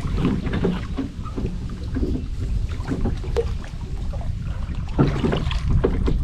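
Wind buffeting the microphone in a steady low rumble, with scattered light knocks and rattles from handling gear in a small boat.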